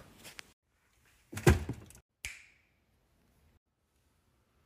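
A single dull thump about a second and a half in, followed shortly by a short click with a brief hiss, then silence.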